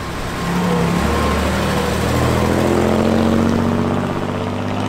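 Engine of a vintage 1930s-style sedan running as the car pulls away, its pitch rising a little through the middle.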